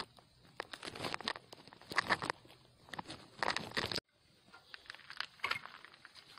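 Irregular bursts of rustling and crackling, as of movement through dry ground cover. It cuts off abruptly about four seconds in, and fainter rustling follows with one sharp click.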